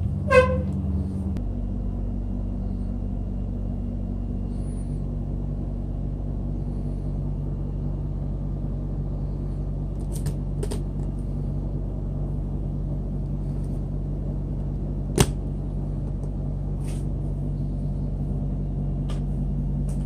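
Salter glass-topped digital bathroom scale being handled and set on a hard floor, over a steady low hum: a short pitched tone just after the start, a few faint clicks, and one sharp knock about 15 seconds in.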